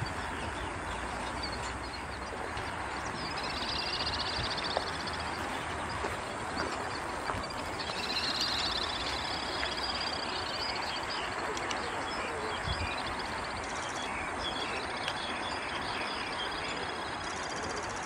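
Wetland ambience: a steady rushing background noise with high, fast trilling calls of small birds or insects that come and go, about four and eight seconds in and again near the end.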